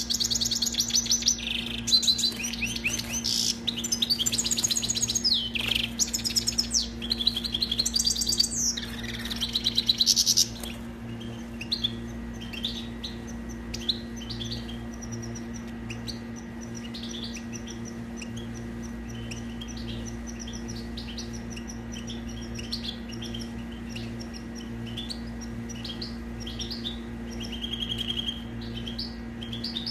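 European goldfinch singing: a loud run of rapid twittering and trilled phrases for about the first ten seconds, then softer, scattered twitters. A steady low hum runs underneath.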